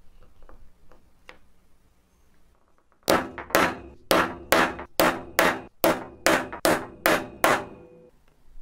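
A hammer striking a steel hole punch held on a leather strap, about eleven sharp blows at roughly two a second, each with a slight ring, to punch a hole through the leather. The blows start about three seconds in, after a few faint taps.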